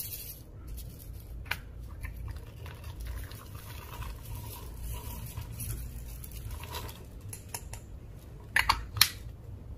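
Slime being stretched and squished by hand, with soft sticky clicks and crackles and two sharper pops near the end.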